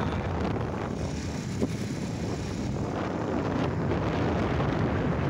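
Wind buffeting the microphone of a handheld phone: a steady low rumble of noise, with one brief tap about a second and a half in.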